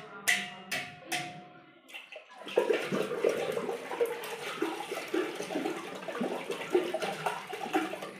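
A few taps on a steel water pot, each ringing briefly. From a couple of seconds in, water sloshes and splashes inside the pot as a hand stirs it, then stops abruptly.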